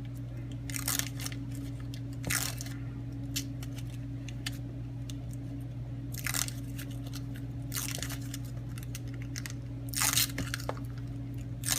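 Painter's tape being peeled off a cured resin-and-wood casting blank in several short tearing, crinkling pulls, over a steady low hum.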